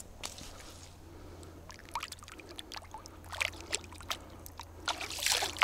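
Small splashes and trickling as a crucian carp is let go by hand into shallow water at the shore, the splashes coming more often and louder toward the end.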